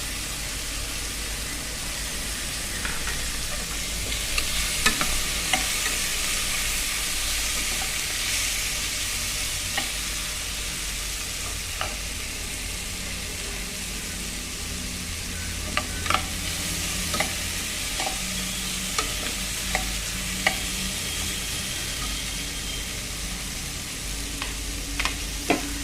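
Onion-tomato masala with ginger-garlic paste sizzling in hot oil in a pot while being stirred, with a steady hiss and a spoon clicking against the pot now and then.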